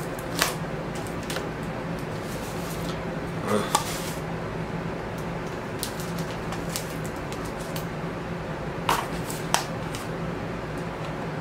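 Scissors snipping and cutting through packing tape on a cardboard record mailer: scattered small clicks and snips, a few louder than the rest, over a steady low hum.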